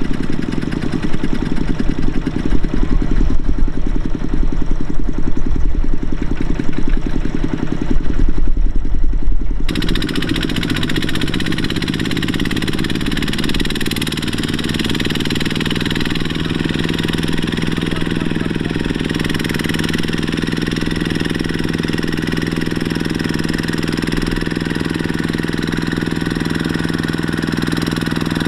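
Single-cylinder diesel engine of a two-wheel walking tractor running while it hauls a trailer loaded with rice sacks through paddy mud. It is loud and rapidly pulsing at first, then about ten seconds in it changes abruptly to a steadier, slightly quieter run with a steady hum.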